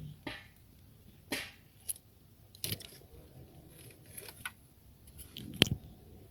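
Small plastic clicks and scrapes from an Opel Corsa C relay box being taken apart by hand, a few scattered over several seconds, with one sharp click near the end.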